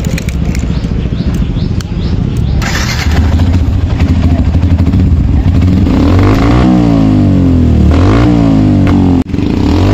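Motorcycle with a changed exhaust running, then revved in repeated throttle blips from about six seconds in, its pitch rising and falling with each blip. The sound cuts out for a moment near the end.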